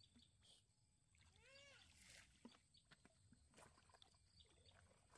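A faint animal call, once, a short rise and fall in pitch about one and a half seconds in, with a few faint clicks and knocks around it.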